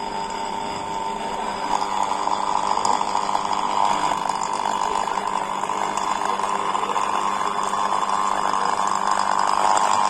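Steady sizzling hiss from graphite pencil-lead electrodes in salt water under current, growing a little louder about two seconds in, with faint crackles: the hydrogen bubbling off the electrodes is igniting as it forms.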